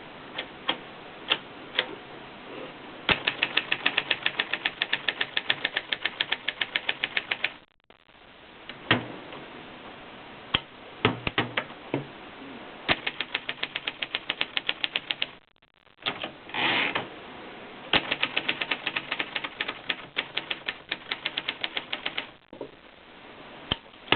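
Keys of a Triumph Norm 6 manual portable typewriter being struck: a few single keystrokes, then quick runs of typing at about eight strikes a second, broken by short pauses. About two-thirds in there is a brief scraping sound between runs.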